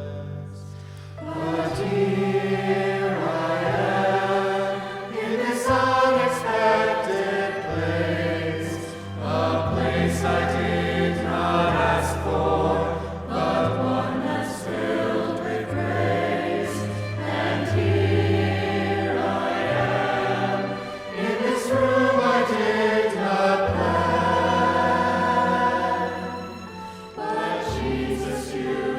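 Church music: a choir singing over held low chords.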